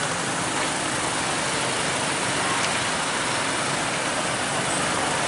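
Road traffic: a light diesel truck driving slowly past while motorcycles idle, over a steady hiss of traffic noise.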